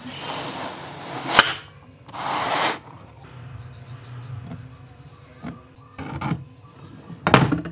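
Workshop handling sounds: a wooden board scraping across a wooden bench top twice, with a sharp knock in between as it is set down. Later come a few light taps and a louder knock near the end as a steel try square and pen are handled on the board.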